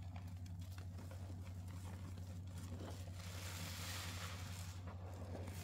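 A sponge soaked in Pinalen pine cleaner being squeezed by hand: small wet clicks and crackles, then a longer, denser hissing crackle of liquid and foam from about three seconds in. A steady low hum runs underneath.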